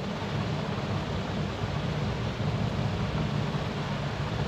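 Steady noise: an even hiss with a low hum underneath, no ticks, beats or tones.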